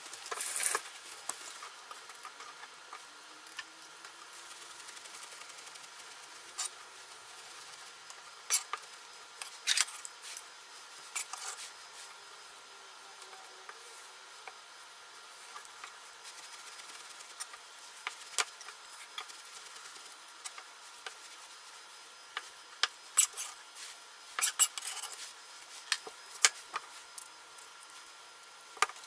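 Kitchen handling sounds: scattered clicks, taps and light knocks of utensils and dishes, coming in small clusters over a faint steady hiss.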